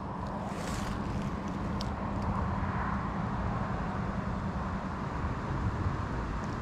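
Wind buffeting the microphone outdoors: a steady low rumble with no break.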